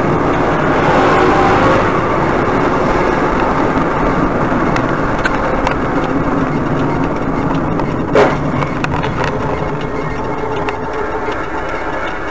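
Car driving along a road, heard from inside the cabin: steady engine and road noise. One brief sharp knock about eight seconds in.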